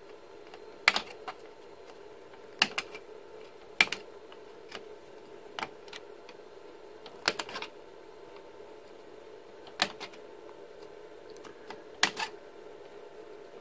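Plastic cable drag chain's snap-on crossbars being pried open one by one with a small screwdriver, giving about half a dozen sharp plastic clicks a second or two apart. A faint steady hum runs underneath.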